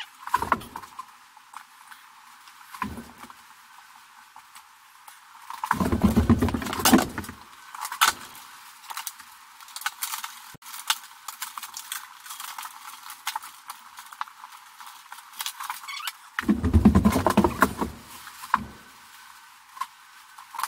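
Electrical cables rustling and clicking as they are pulled and worked into a breaker panel. There are two louder spells of low bumping and rumbling, about six seconds in and again near the end.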